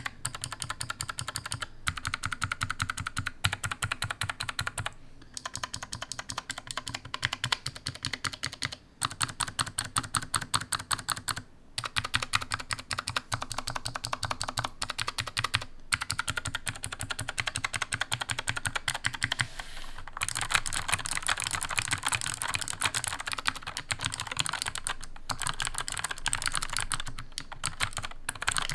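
Fast typing on a Cooler Master SK622 low-profile mechanical keyboard with TTC blue clicky switches: a quick, continuous patter of sharp clicks. It comes in runs of a few seconds with brief pauses between them, and grows denser and louder about two-thirds of the way in.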